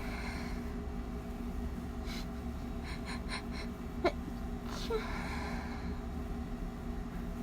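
A stifled sneeze muffled into a pillow, one of a run of allergy sneezes: a single short sharp burst about four seconds in. Before it come a breath and a few quick catching inhales, and after it a breathy exhale.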